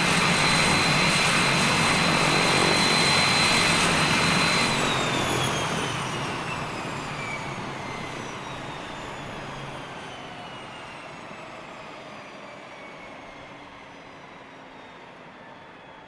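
Beechcraft King Air twin turboprop engines shutting down, heard from outside. A steady high turbine whine over a low propeller drone holds for about five seconds. Then the whine falls in pitch and the sound slowly fades as the engines spool down.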